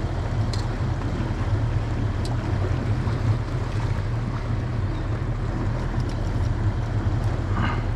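Boat's outboard motor running steadily under way, a low drone with rushing water and wind noise over it.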